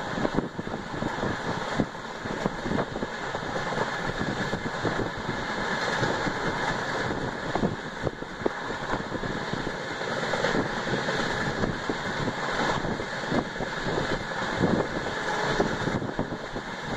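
Running noise of a passenger train at speed, heard from inside an LHB coach: a steady rush and rumble, thick with small irregular knocks and rattles from the wheels and coach.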